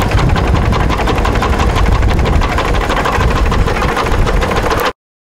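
Paddle steamer Waverley's steam-driven bow capstan running as it heaves in a mooring rope, a loud mechanical clatter with a fast, even beat of several knocks a second. It cuts off suddenly near the end.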